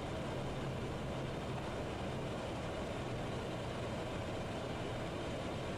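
Steady cockpit noise of a Cessna Citation business jet on final approach with gear and flaps down: an even rush of engine and airflow with a low hum underneath.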